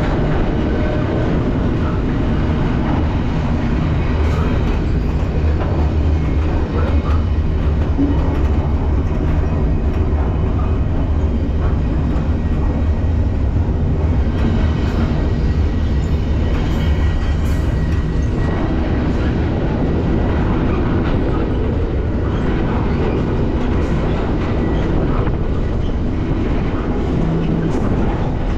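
Moving BNSF freight train, heard from aboard a car as a steady low rumble.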